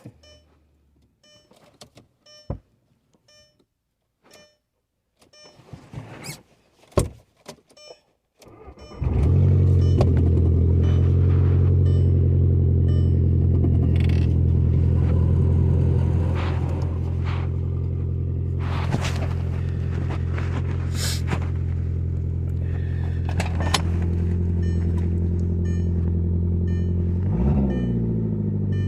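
Audi TT's 1.8-litre turbocharged four-cylinder started from cold after a few quiet clicks, catching about nine seconds in. It settles into a steady, loud cold idle that eases a little about seven seconds later, with a brief dip in engine pitch near the end.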